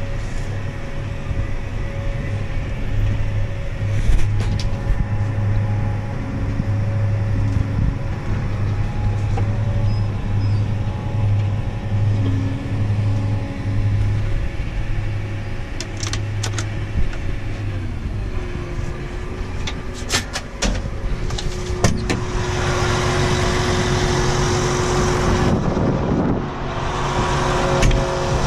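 Farm tractor engine running steadily while under way. About two-thirds of the way through its note shifts lower. A few sharp clicks and a louder rushing noise follow near the end.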